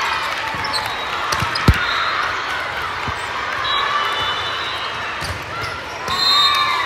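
Volleyball being hit during a rally, several sharp smacks with the loudest about a second and a half in. Athletic shoes squeak on the gym floor throughout.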